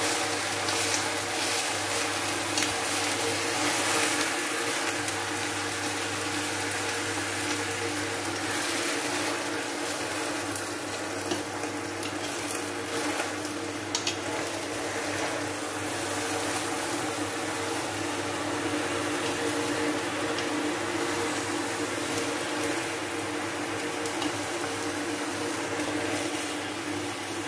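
Steady hiss and low hum of pots cooking on the stove: potatoes boiling in water and garlic frying in oil under a pot of spinach, with faint rustles and clicks as spinach leaves are pressed into the pot.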